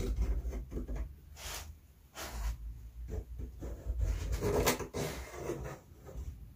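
Pencil of a drawing compass scraping on a wooden board in several short strokes, with knocks and bumps of handling.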